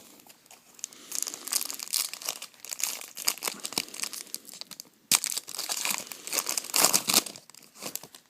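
A foil trading-card pack wrapper being torn open and crinkled: a run of crackling rustles, loudest about five and seven seconds in.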